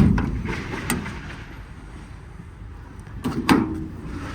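Metal compartment doors and latches on a truck service body being handled. A loud clunk comes at the start, a lighter knock about a second in, then a short clatter of clunks about three seconds in.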